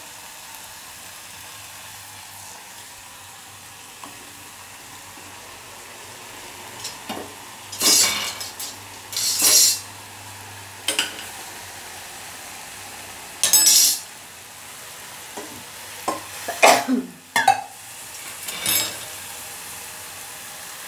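Wheat parotta deep-frying in hot oil in an iron kadai, a steady sizzle. From about seven seconds in, several short louder bursts come as the bread is moved about in the pan.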